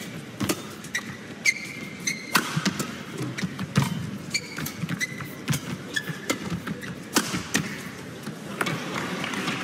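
Badminton rally: sharp racket strikes on the shuttlecock every second or so, mixed with short high squeaks of shoes on the court mat.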